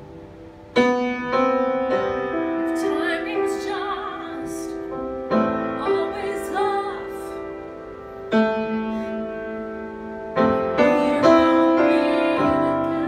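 Upright piano playing slow sustained chords, the first struck about a second in and new ones every few seconds, with a woman singing long phrases with vibrato over them.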